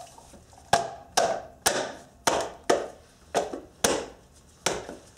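A gloved palm slapping a 1990-1997 Honda Accord's centre hubcap onto the alloy wheel to seat it: about eight sharp smacks, irregular and roughly half a second apart.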